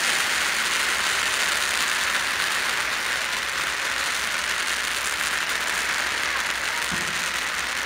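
Strings of Chinese firecrackers going off in a dense, unbroken rapid crackle.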